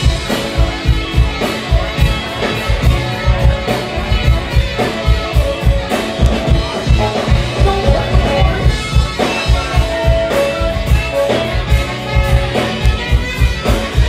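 Live band playing: electric guitar and drum kit keeping a steady beat, with a saxophone.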